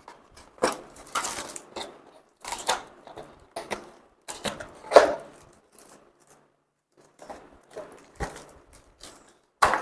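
A boxed computer keyboard being handled: its packaging rustles and the keyboard knocks and clacks as it is lifted out and moved. The noises come in irregular bursts, with a short pause a little past the middle.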